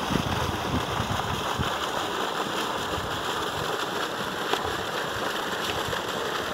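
Steady rushing noise of water running from the borewell pipe into the brick tank, with some low wind rumble on the microphone in the first second or two.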